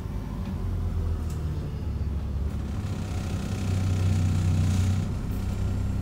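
Diesel engine of an Alexander Dennis Enviro400 double-decker bus running, heard from inside the passenger saloon, with a steady low hum that grows louder for a second or two past the middle.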